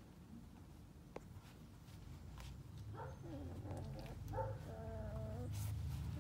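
Sheepadoodle puppies, about four weeks old, whimpering. From about halfway there are short yips, a falling whine, and one drawn-out whine near the end, over a low rumble.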